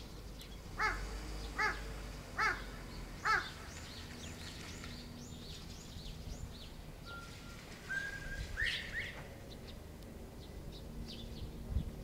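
Northern bobwhite whistling its 'bob-white' call about two-thirds of the way through: level whistled notes ending in a sharp rising whistle. Before it, a crow caws four times at an even pace, and small birds chirp high and thin.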